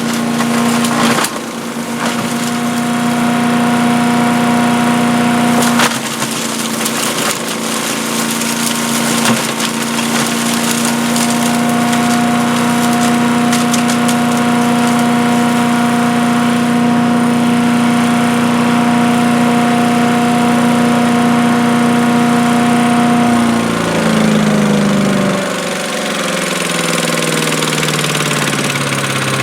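Earthquake 212cc wood chipper-shredder's single-cylinder gas engine running at a steady high speed, with crackling and snapping as material is chewed up in the grinder. About 23 seconds in, the engine slows and its pitch keeps falling.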